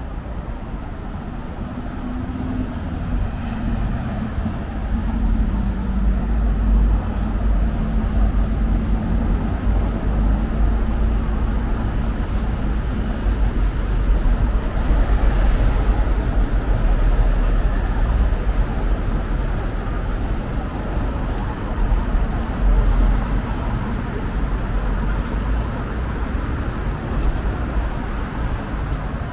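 Street traffic noise: passing motor vehicles with a steady low rumble. One engine's hum stands out from about two seconds in and fades away after about ten seconds.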